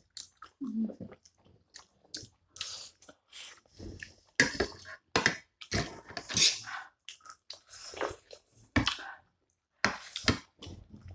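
Close-miked eating: chewing and biting into steamed momo dumplings and buffalo meat, a run of irregular wet mouth noises of varying loudness.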